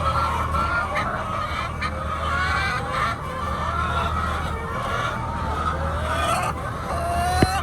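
A flock of hens calling all at once: many overlapping squawks and clucks, continuous, over a steady low hum. A sharp click sounds near the end.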